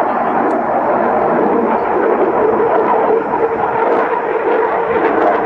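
Eurofighter Typhoon's twin EJ200 turbofan jet engines in flight: a loud, steady jet noise with a faint steady tone running through it.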